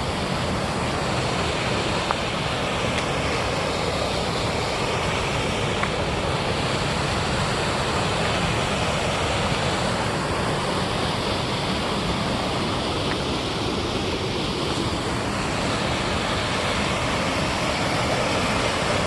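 Waterfall rushing, a steady unbroken wash of falling water.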